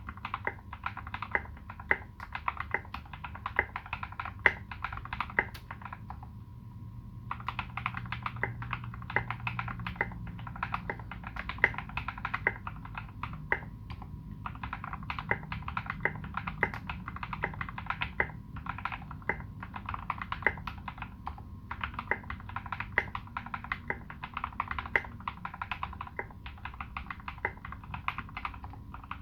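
Continuous typing on a Space65 custom mechanical keyboard with modded Turquoise Tealios linear switches and SA-profile keycaps: rapid, irregular keystrokes with brief pauses about six seconds in and again near fourteen seconds.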